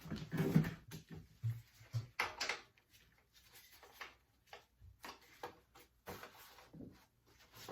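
Intermittent clicks and knocks of hand tools and small engine parts being handled, busier in the first two and a half seconds and sparser after.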